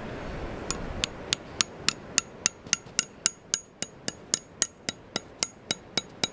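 Hammer tapping a plastic spile into a tap hole in a maple trunk: a steady run of light, sharp taps, nearly four a second, starting just under a second in.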